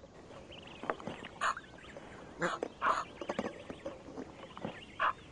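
Egyptian geese giving several short calls about a second apart, with goslings' thin, high, wavering peeping in between.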